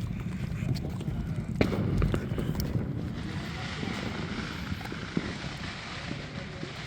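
A small backyard firework hissing steadily for a few seconds, after a few sharp crackles, over a low rumble.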